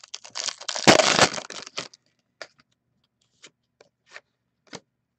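Trading-card packaging rustling and crinkling for about two seconds, loudest about a second in, followed by a few light clicks and taps of cards being handled.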